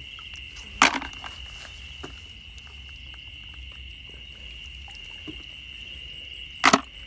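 Steady high chirring of crickets, broken by two sharp clatters, one about a second in and a quick double one near the end, the second as a handful of apple snails is dropped into a plastic bucket.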